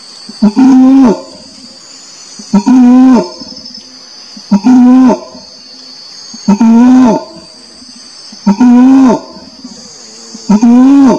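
Orangutan calling over and over, one call about every two seconds: each a brief click followed by a pitched call about half a second long that drops at its end. A steady high hiss runs underneath.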